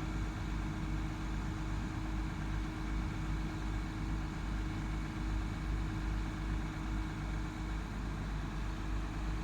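Heavy diesel engine of an excavator running steadily at idle, a low even rumble with a steady hum over it that drops out about eight seconds in.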